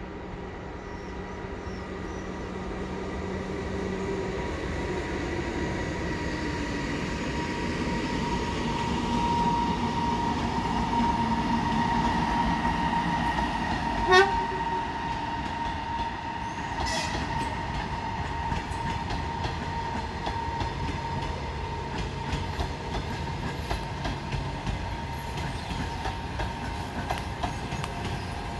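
EP2K electric locomotive hauling a passenger train at speed, its steady whine and rumble growing louder as it approaches. A brief, sharp horn toot comes about halfway through as the locomotive passes, then the rhythmic clickety-clack of the coaches' wheels over the rail joints.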